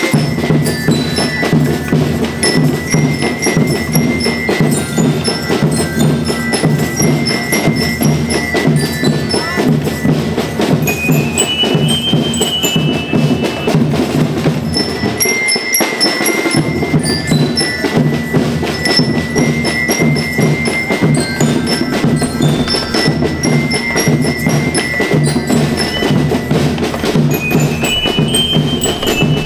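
School rhythm band (banda rítmica) playing: bell lyres carry a high, bell-like melody over a fast, steady drum beat. The low drums drop out briefly about halfway, then the tune starts again.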